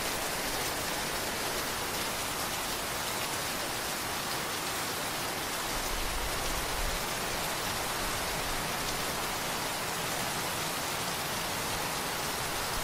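Steady rain falling, an even hiss of drops that does not let up. A short low rumble comes about halfway through.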